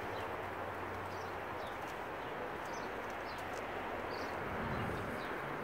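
Outdoor background noise: a steady rushing haze with a faint low hum, and faint short high chirps now and then.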